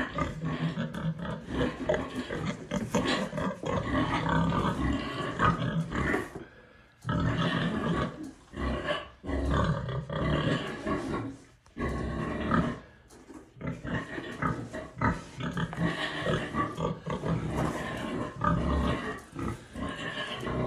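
Pigs vocalising: long, loud calls one after another, broken by brief pauses.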